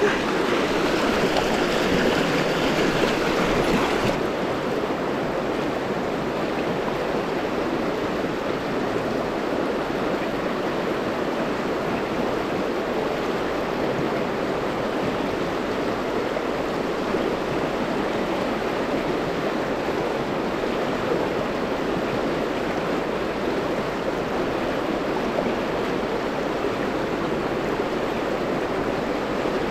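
River rapids rushing steadily, an even wash of water noise; it is a little brighter for the first four seconds or so, then settles.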